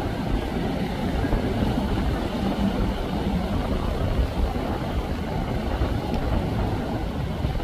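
Navetta motor yacht cruising past: a steady low rumble of its engines mixed with the rush of its wake.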